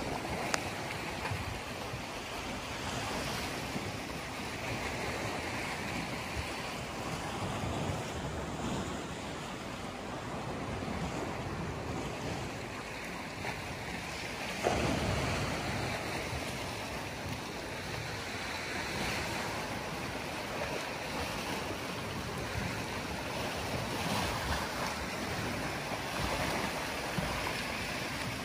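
Small sea waves washing and splashing against shoreline rocks and driftwood, with wind buffeting the microphone. One louder splash comes about halfway through.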